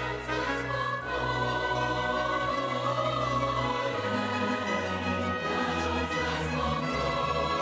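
Choir with orchestra performing a hymn in sustained chords. The bass moves to a new note about four seconds in.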